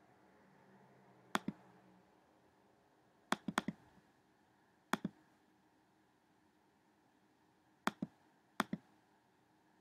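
Computer mouse button clicking: about six sharp clicks spread unevenly, each a quick double tick of press and release, with a short flurry of clicks about three and a half seconds in.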